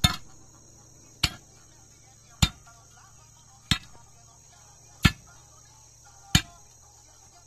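Steel digging bar jabbed down into the soil to dig a fence-post hole: six sharp strikes, about one every 1.3 seconds. Insects chirr steadily and high-pitched in the background.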